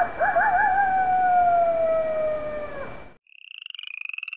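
Wolf howl: one long call that wavers at the start, then slides slowly down in pitch and fades out about three seconds in. It is followed by a rapid pulsing trill.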